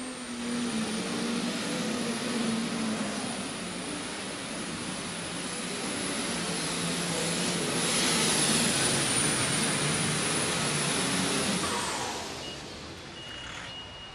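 Case IH MX240 diesel super stock pulling tractor running flat out under the load of the pulling sled: a loud roar with a high steady whine, typical of its turbochargers. About 12 seconds in the whine falls away and the roar dies down as the run ends.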